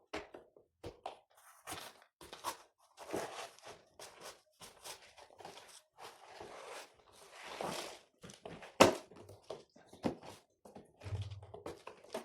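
A computer keyboard being handled and cleaned: irregular plastic clicks and taps, with a few longer rubbing stretches. The loudest is a single sharp click about nine seconds in.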